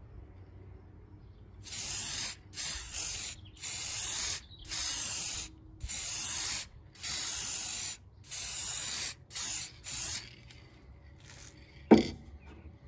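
Aerosol spray adhesive hissing from a can in about ten short bursts, each under a second, as it is sprayed along the edge of extruded polystyrene foam. Near the end comes a single sharp knock.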